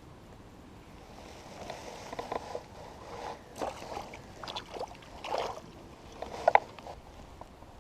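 Water splashing and sloshing in irregular bursts for several seconds, with the loudest splash near the end.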